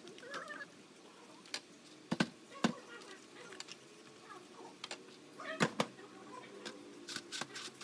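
A paintbrush scrubbing a wet grinding stone in a stainless steel tray, with a few sharp knocks and clacks as the stone and brush hit the metal tray, the loudest near the middle and shortly before the brush is set down.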